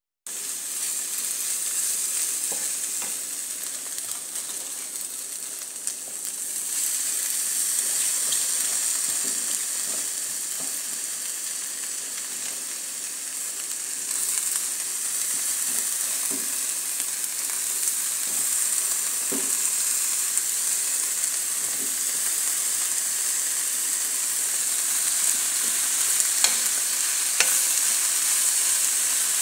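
Chopped cabbage, carrot and green pepper sizzling steadily in a hot nonstick pan while being stirred and turned with a wooden spatula, with light scrapes of the spatula on the pan and a couple of sharper taps near the end.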